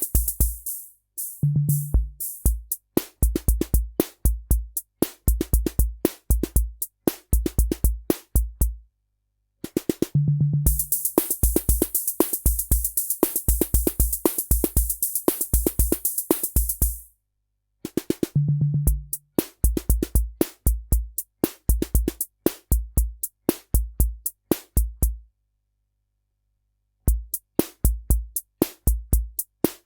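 Korg SR-120 Mini Pops analog drum machine playing its Rock rhythm patterns: a steady bass-drum pulse under fast, even hits. It stops and restarts three times, each restart opening with a pitched low drum note, and a long hissing cymbal wash runs through the middle stretch.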